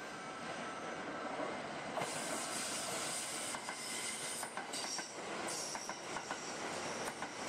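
Kintetsu 12200 series limited-express electric train approaching and then running past close by, with a steady rumble and repeated clicks of the wheels over rail joints. A high steady wheel squeal comes in during the second half.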